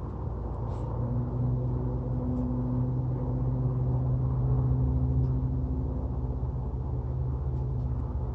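A vehicle engine running steadily, a low hum that grows stronger about a second in and eases near the end.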